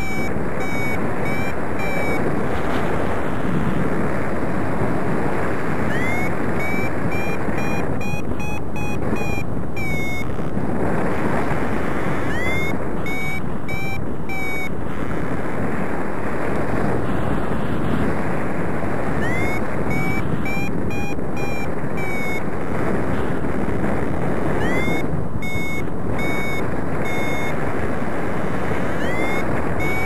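Steady wind rush over the microphone of a paraglider in flight, with a variometer beeping in spells of quick, even beeps, each spell opening with a short rising chirp. That is the vario's climb tone, the sign that the glider is in rising air.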